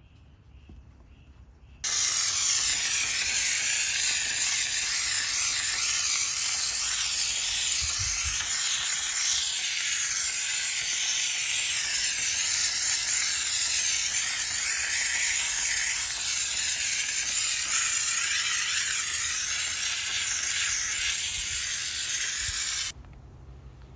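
Loud, steady hiss of a pressurized jet from a detailing tool. It switches on about two seconds in and cuts off abruptly near the end.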